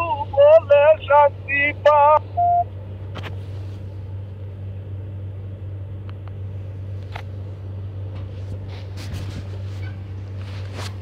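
A voice singing a few short, wavering phrases that stop about two and a half seconds in, then a steady low hum with a few faint clicks.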